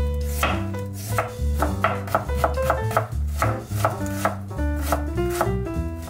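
Chef's knife slicing a carrot on a wooden cutting board: a steady run of crisp chops, about two to three a second, each knife stroke hitting the board. Jazz background music plays underneath.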